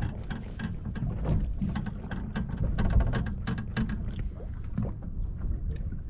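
Wind rumbling on the microphone aboard a small fishing boat at sea, with many irregular clicks and knocks from the boat and tackle.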